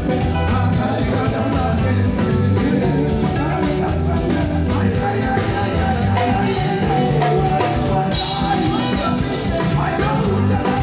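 Band playing upbeat music at a sound check, with a steady beat, a repeating bass line and some singing over it.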